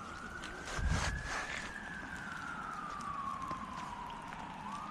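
Emergency-vehicle siren wailing: a single tone that rises, slides slowly down over about three seconds, then starts to rise again near the end. A brief low rumble comes about a second in.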